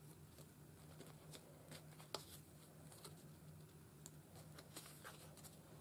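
Faint rustling and soft ticks of paper cards being handled and shuffled, with one slightly sharper tick about two seconds in, over a low steady hum.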